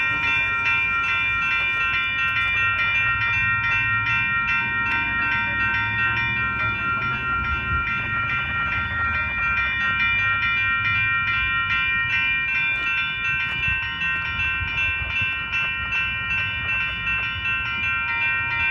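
Railroad crossing's two electronic bells, a WCH Gen 2 Type 3 and a General Signals Type 2, ringing in steady, rapid, evenly repeated strokes as the gates come down. A low rumble runs underneath, strongest in the first half. The crossing has been set off by a known malfunction that re-activates it whenever a westbound train switches from track 2 to track 1.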